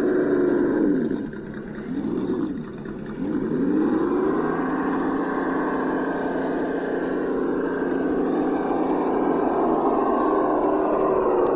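Traxxas TRX6 6x6 RC crawler under throttle, its running note rising and falling as the throttle is worked. The note sags twice in the first few seconds, then holds steady as the truck climbs.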